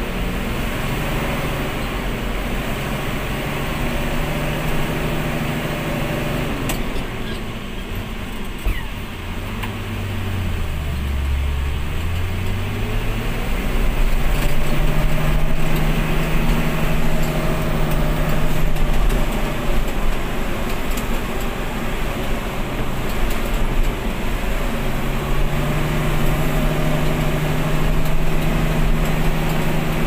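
Logging truck's engine running, heard from inside the cab on a rough dirt road. About a third of the way in the engine note sinks low, then climbs again as the truck picks up speed, with a second smaller dip and rise later; a single sharp knock comes just before the first dip.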